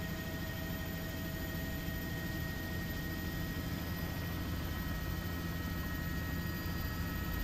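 Steady aircraft engine noise: a low, even rumble with a faint steady whine above it.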